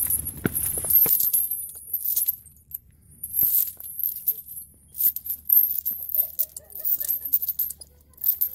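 Fixed steel chain handhold on a granite slab clinking and jangling as a climber pulls on it, in several short bursts of light metallic rattling with quiet gaps between them.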